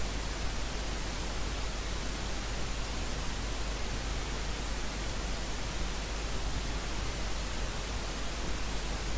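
Steady, even hiss with a low hum underneath and nothing else: the noise floor of the recording.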